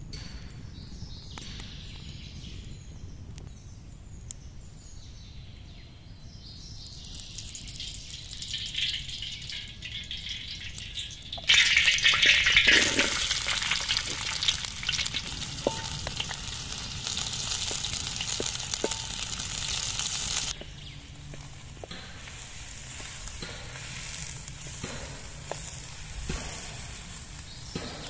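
Oil heating in a large steel pan over a wood fire, starting to sizzle faintly. A few seconds later, chopped onions tipped into the hot oil set off a loud sizzle that lasts several seconds and then cuts off abruptly.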